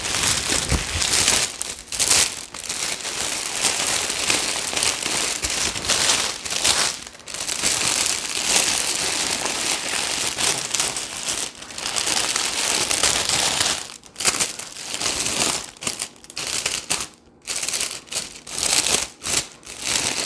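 Cellophane wrap crinkling continuously as it is pulled up and gathered around a gift box, with several brief pauses near the end.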